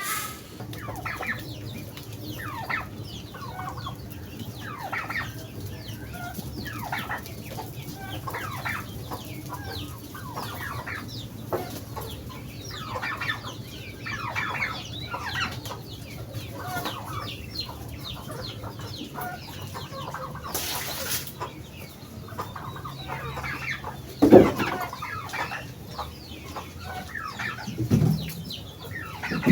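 Backyard chickens clucking over and over, with a steady low hum underneath. A brief rustle comes about two-thirds of the way through, and two louder, lower sounds come near the end.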